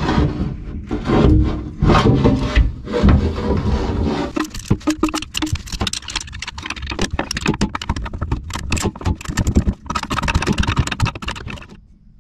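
Hand tools and metal parts being worked on: heavy irregular knocks and scrapes in the first few seconds, then a dense run of quick clicks and rattles.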